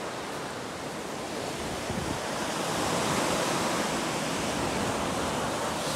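Ocean surf breaking and washing up the beach, a steady rush that swells louder about two seconds in.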